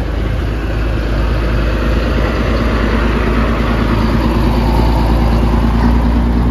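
Ex-military Scammell heavy truck's diesel engine running as the truck pulls slowly past at close range, growing louder toward the end.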